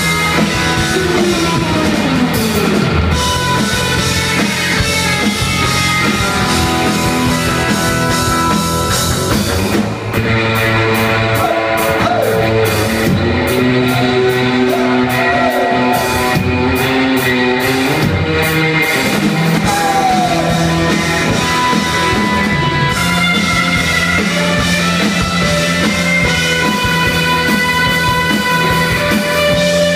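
Live surf-rock trio playing: a fast electric guitar lead over bass guitar and a drum kit. A falling pitch glide comes near the start, and the band briefly drops out about ten seconds in.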